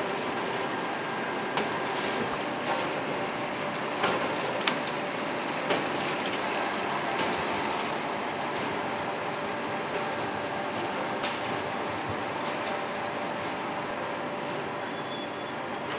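Forge machinery running with a steady industrial din, broken by a few sharp knocks, most of them in the first half.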